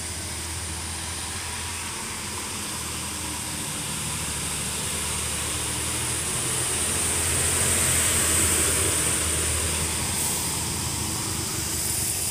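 Bus diesel engine roaring as it climbs through a hairpin bend, growing louder to a peak as it passes close about eight seconds in, then easing as it pulls away uphill. A steady low hum runs underneath from a motorcycle left idling close by.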